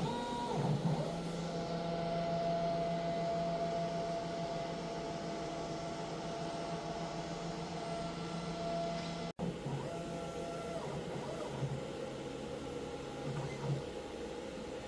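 CNC router's axis motors whining steadily as the gantry drives back to its home origin. About nine seconds in the whine breaks off abruptly, and shorter, lower moves follow.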